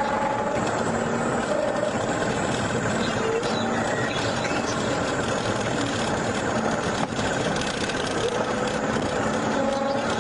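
Steady engine and tyre noise heard from inside a car driving at highway speed.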